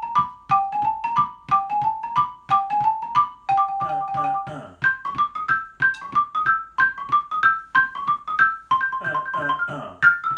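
Xylophone played with mallets: a quick run of evenly spaced struck notes, in short phrases that climb step by step and repeat, working through a syncopated exercise.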